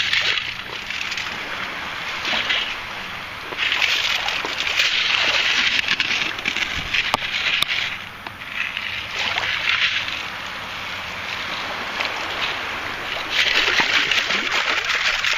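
Water sloshing and washing in repeated surges a second or two long, with a couple of sharp knocks about seven seconds in.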